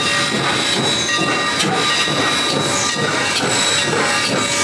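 A steady, loud hiss with a few thin high tones running through it and a few faint ticks.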